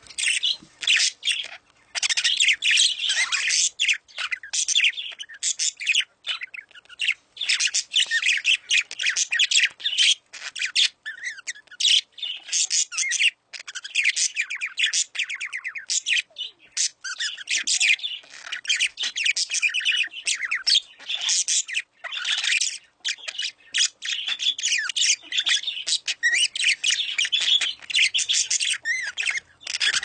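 Many caged birds chirping and squawking at once: a dense, high-pitched chatter of overlapping short calls with only brief pauses.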